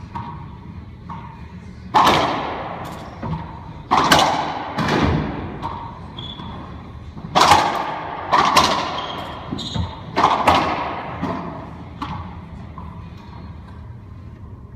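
Racquetball rally on an enclosed court: a few light bounces of the ball, then from about two seconds in some six loud, sharp cracks of racquet strikes and the ball hitting the walls, each ringing on in the echoing court. The rally ends about eleven seconds in.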